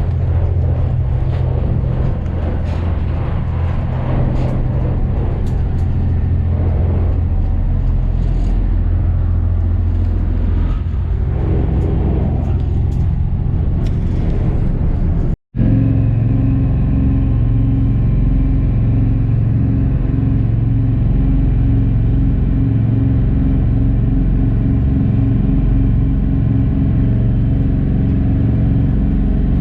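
Small passenger ferry's diesel engine running steadily with a low, even rumble. It drops out for an instant about halfway through, then carries on with a steadier hum.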